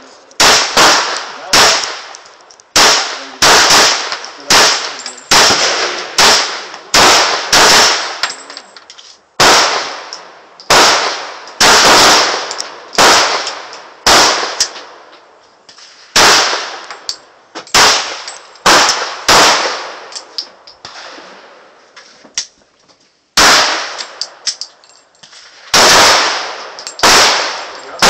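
Smith & Wesson Sigma .40 pistol fired shot after shot, about one a second, each sharp report trailing off in a short ring. A brief pause comes about three quarters of the way through, then firing resumes.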